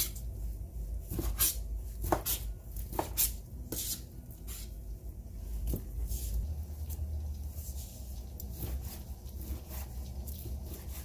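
Kitchen knife cutting raw chicken breast on a plastic cutting board: irregular sharp taps of the blade striking the board, over a steady low hum.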